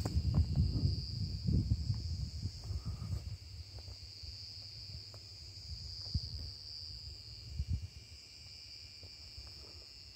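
Steady, high-pitched drone of a chorus of insects. Under it is a low, irregular rumble that is loudest at first and fades away over the first few seconds, with a few faint clicks.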